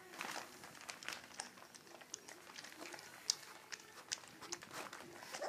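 A young Welsh Springer Spaniel puppy lapping formula milk from a shallow tray for the first time: faint, irregular small wet clicks and smacks, several a second.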